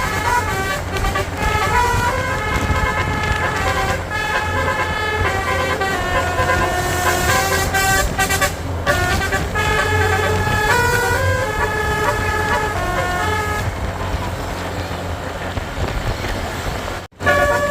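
Bus basuri (telolet) multi-tone horn playing a melody in held, stepped notes over the bus engine's low running. The notes thin out for a couple of seconds before the end, and the sound cuts out briefly near the end.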